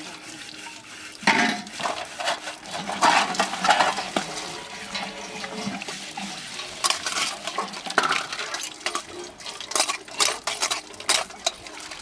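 Stainless steel plates, bowls and pots clattering and scraping as they are washed by hand, with a soot-blackened pot being scrubbed, over water running from a tap. The clinks and scrapes come irregularly, many to a second at times.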